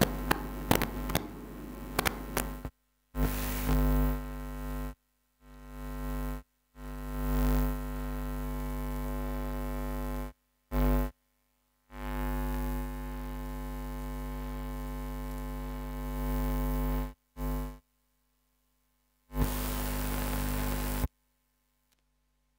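Steady electrical mains hum and buzz in the microphone and sound-system feed. It cuts out suddenly to dead silence several times and comes back each time, then stops about three seconds before the end. A few short clicks come in the first two seconds.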